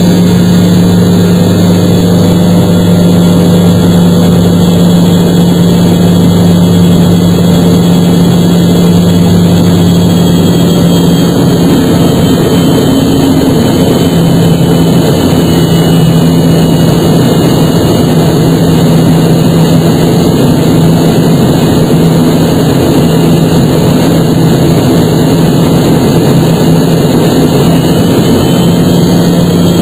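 Airliner cabin noise: the jet engines and rushing air make a loud, steady drone with a low hum. About a third of the way in, the lowest part of the hum drops away and the pitch shifts slightly.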